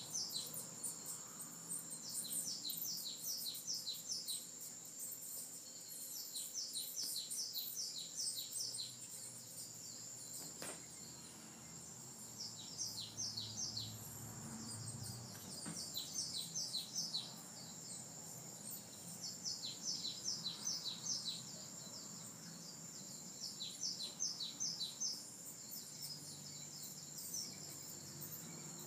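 Recorded birdsong from a cat-entertainment video playing on a TV: a small bird giving bursts of rapid, short downward chirps, about eight notes at a time, repeated every few seconds over a steady high insect-like tone.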